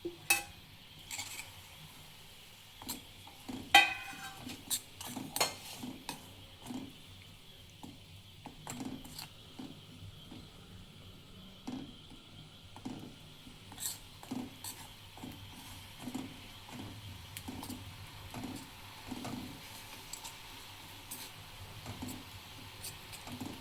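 A spoon stirring a thick jaggery mixture with grated ginger in a pan on the stove, knocking and scraping against the pan. A few sharp knocks come in the first six seconds, then soft, fairly regular strokes over a faint sizzle.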